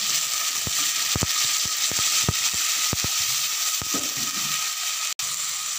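Water poured into an aluminium pot of onions and tomatoes frying in hot oil, the oil sizzling hard with sharp crackling pops scattered throughout.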